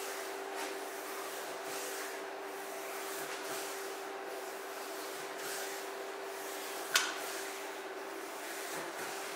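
Hands rubbing and pressing on an oiled bare back during a back massage: soft swishing strokes over a steady hum, with one sharp click about seven seconds in.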